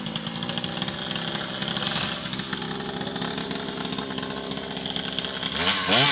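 Chainsaw idling steadily, then revved up to full throttle near the end.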